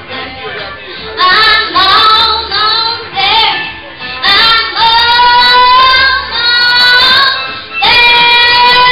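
A young girl singing into a microphone: short phrases at first, then long held notes in the second half.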